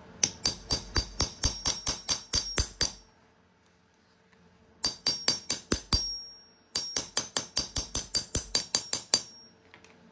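A hammer striking a 17 mm steel socket to drive a new rubber boot into a brake caliper bracket. Three runs of quick taps, about five a second, each with a short metallic ring.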